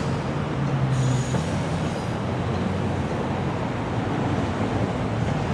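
SEPTA Silverliner IV electric multiple-unit train rolling away on the rails, a steady rumble of wheels on track. A faint high squeal from the wheels comes and goes in the first couple of seconds.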